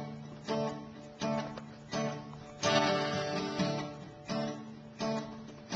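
Acoustic guitar strummed in a steady rhythm, each chord struck sharply and left to ring and fade before the next, about one and a half strums a second.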